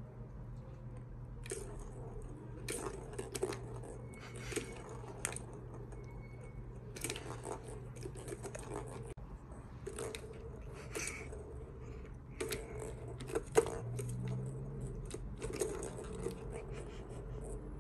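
Kittens batting the balls around a plastic three-tier cat track toy: irregular clicks, knocks and short rattles of the balls and paws on the plastic, with one sharper knock about three-quarters of the way in.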